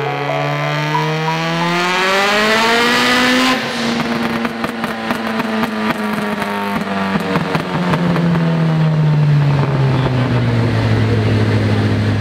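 Car engine revving hard, its pitch climbing for about three and a half seconds, then coming off throttle and slowly winding down.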